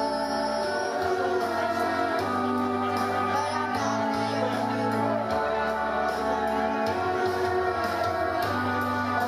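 Youth choir singing into microphones over a slow backing track with long held bass notes.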